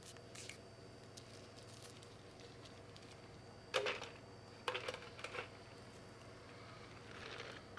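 A few short, sharp clattering knocks: one loud one about four seconds in, then a quick cluster about a second later, over a steady low hum.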